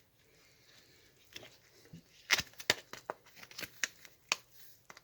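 Bubble wrap and plastic packaging being handled: soft crinkling, then a run of sharp clicks and crackles in the second half.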